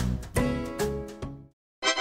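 Background music of plucked, guitar-like notes, about two a second, that stops short about three-quarters of the way through; after a brief gap a held, steady tone begins near the end.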